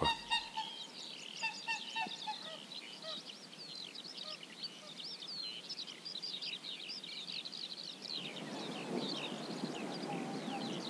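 A spring chorus of many songbirds with high, quick notes, with a few honking waterfowl calls in the first few seconds. From about eight seconds in, the rush of flowing water joins the birdsong.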